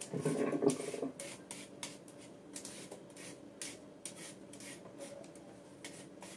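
Vegetable peeler scraping down a raw carrot in short rasping strokes, about two a second, with a brief clatter of handling at the start.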